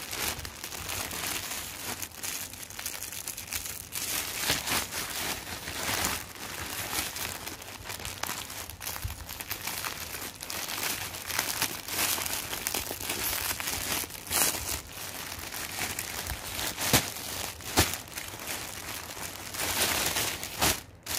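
Clear plastic wrapping on folded fabric packs crinkling and rustling as the packs are handled, a long run of irregular crackles.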